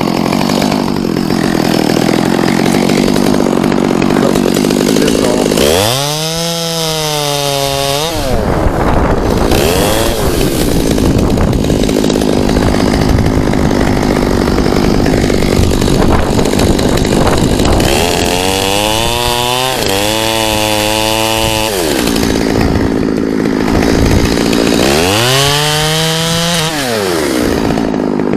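Chainsaw cutting through wood at full throttle while a treetop is cut off, its pitch rising and dropping three times as the engine is revved and eased off.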